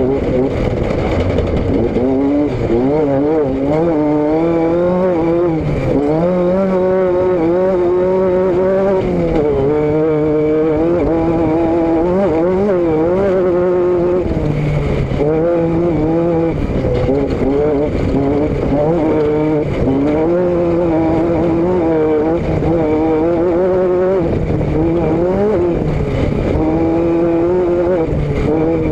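Vehicle engine and exhaust running steadily under way, its pitch repeatedly rising and falling with changes in throttle and speed.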